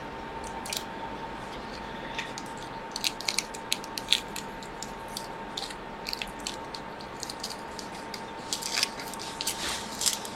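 Small scattered clicks and crackles of heat-resistant tape being peeled off a circuit board with fine tools, in two clusters, over a faint steady tone.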